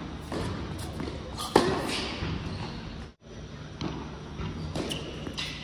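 Tennis rally: sharp pops of the ball coming off racket strings and bouncing on the court, echoing in a large indoor hall, the loudest strike about one and a half seconds in. The sound cuts out for a moment about three seconds in.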